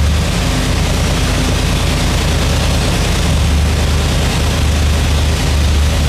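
Supercharged 588-cubic-inch Chrysler Hemi V8 idling on an engine dyno at about 1,100 rpm, a steady low rumble, its exhaust run through temporary dual mufflers.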